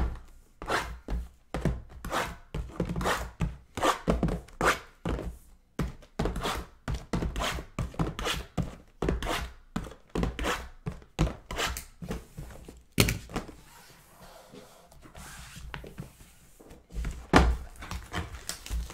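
Sealed Topps Tier One hobby boxes being shuffled and restacked by hand on a table: a run of dull thunks, about two a second, that thins out about two-thirds of the way through, with one louder knock near the end.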